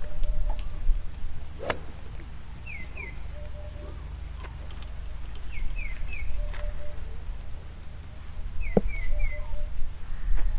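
A driver striking a golf ball off the tee about two seconds in, one sharp crack. Small birds chirp in short groups of quick falling notes throughout, over a steady low rumble.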